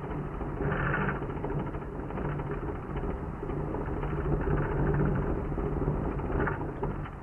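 Deep, steady rumble of ground shaking during an earthquake, with short bouts of rattling and clatter about a second in and again near the end.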